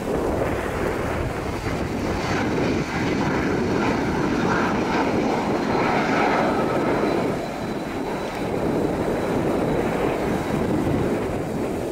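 BAe 146 jet airliner's four turbofan engines at takeoff power as it accelerates along the runway and lifts off: a steady, loud rush of jet noise with a faint high whine on top.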